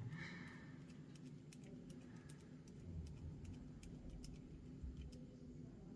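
Faint, scattered light clicks of tiny screws being sorted and picked over by hand, over a low steady room hum.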